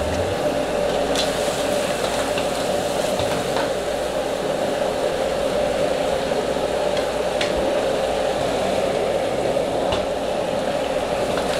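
Sauce sizzling steadily in a hot wok over a gas flame, with a few light clicks as clams and basil are tipped into the pan.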